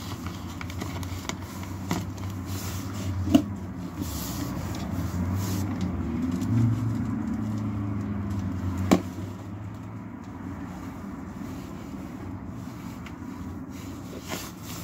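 Steady low rumble with handling noises of half-pint cups and compost being worked: two sharp clicks stand out, about three seconds in and about nine seconds in, with fainter knocks and scrapes around them.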